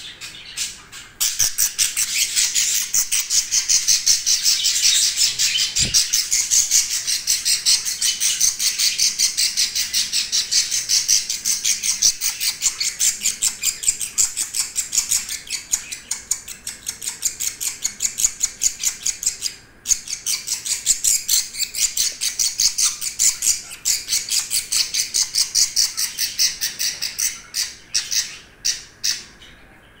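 Budgerigar chicks calling: a rapid, unbroken string of high, scratchy calls, with a short break about twenty seconds in, thinning out near the end.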